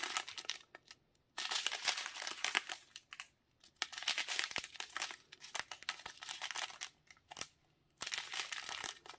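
Thin plastic resealable bags of diamond painting drills, joined in strips, crinkling as they are handled and turned over, in about five bursts with short pauses between.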